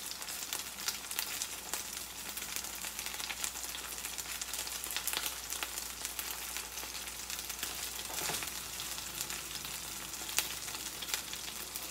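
Chicken pieces browning in oil in a nonstick frying pan: a steady sizzle with frequent small crackles and pops.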